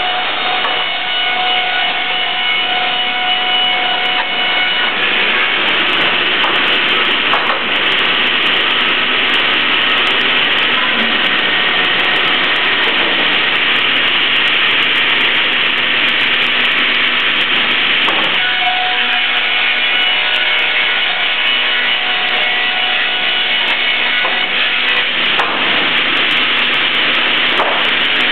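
Ustunkarli board edger's circular saw blades running and ripping the bark edges off boards fed through it, a steady sawing noise throughout.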